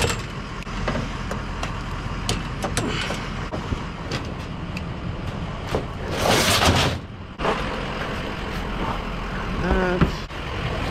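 A vehicle driving, with steady engine and road rumble and a few small knocks; about six seconds in comes a loud rush of noise lasting about a second.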